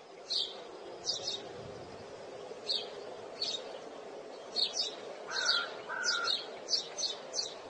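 Wild birds chirping: short, sharp high chirps repeated irregularly, a dozen or so, over a faint steady low hum.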